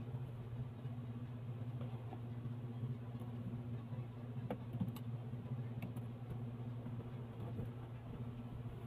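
Cardboard and plastic packaging handled during unboxing: scattered light clicks and rustles of box flaps and a bagged power cord, over a steady low hum.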